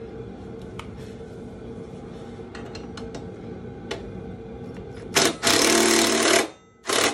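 A cordless power driver runs in bursts, driving in the screws that fasten a solo bag bracket to a motorcycle frame. One run of about a second and a half starts about five seconds in, and two short bursts follow near the end, after a few light handling clicks.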